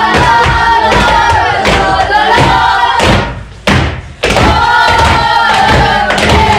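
A group of boys chanting together in a long held call while banging their football boots on the floor in a steady rhythm. The chant breaks off briefly about three seconds in, then starts again with the thumps.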